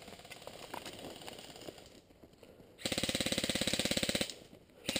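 Airsoft electric gun firing on full auto: a burst of about a second and a half starting about three seconds in, and a second burst beginning near the end, each a rapid even rattle of shots over the gearbox motor's steady whine.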